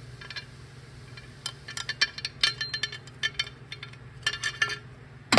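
Light metallic clicks and clinks, scattered irregularly, as a small spool valve and its retainer are worked out of their bore in a Toyota AB60 transmission valve body: the pressure regulator valve. A steady low hum runs underneath.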